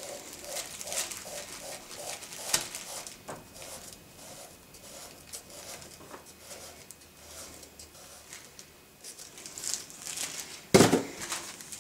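Clear plastic zip-lock bags crinkling and rustling as polishing wheels are handled and taken out of them, in scattered short crackles, with a sudden louder handling noise near the end.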